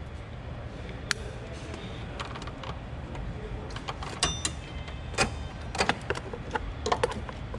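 Hand work on car parts: irregular light clicks and taps of tools and plastic hose fittings being handled, over a low steady hum.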